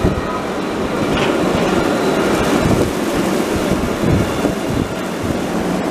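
Alstom Citadis light-rail tram passing close by, a steady rumbling of its wheels on the rails and its running gear.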